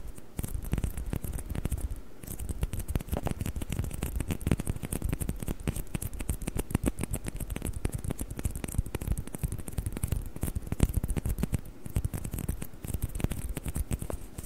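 Fast, uneven tapping on plastic table tennis balls, many small clicks a second with only brief pauses.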